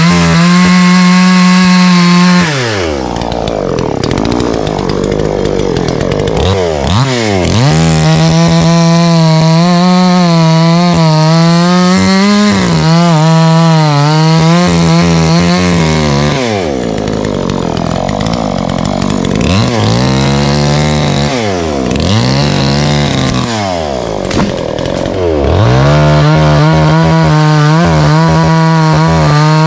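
Petrol chainsaw cutting through the base of an olive tree trunk. It is held at full throttle in three long stretches, dropping away and revving back up between them.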